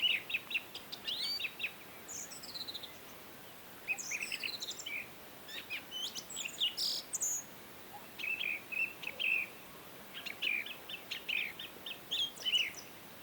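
Several songbirds chirping and trilling, with many quick short notes and overlapping calls, over a faint steady hiss.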